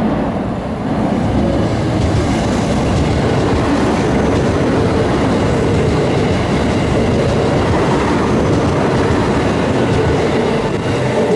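Electric train running along the track: steady rolling noise with wheels clattering over the rail joints.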